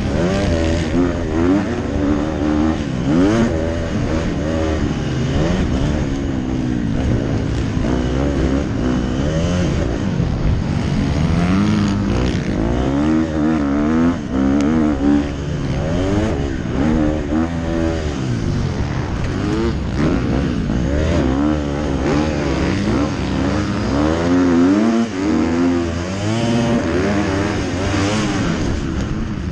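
Motocross bike engine heard from the rider's helmet, revving hard and dropping back over and over as the rider works the throttle and shifts through the gears.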